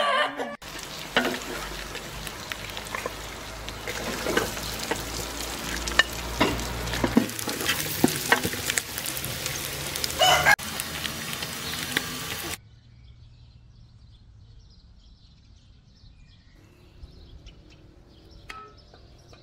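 Lamb meat sizzling as it fries in a pan, with a utensil clicking and scraping against the pan as it is stirred. The sizzling cuts off suddenly about twelve seconds in, leaving a much quieter background with a few faint sounds.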